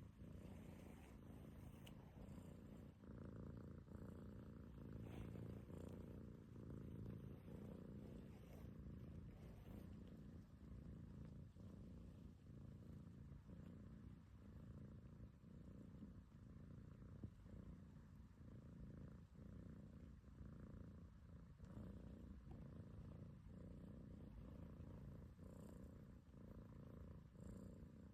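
Domestic cat purring steadily and low, the purr breaking briefly with each breath about once a second. It is the contented purr of a cat having its belly rubbed.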